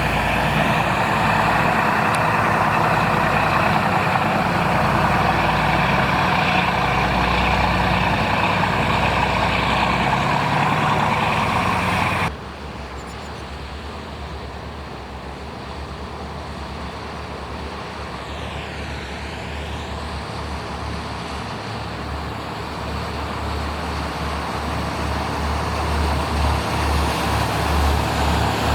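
Patrol boat engines running loud and steady with a rushing noise. About twelve seconds in the sound cuts abruptly to a quieter low engine rumble that slowly grows louder.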